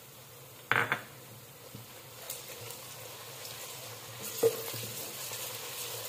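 Onions and ginger-garlic paste frying in hot ghee in a metal pot, sizzling steadily as a wooden spatula stirs them. There is a short loud burst about a second in, and a sharp knock of the spatula against the pot a little past four seconds.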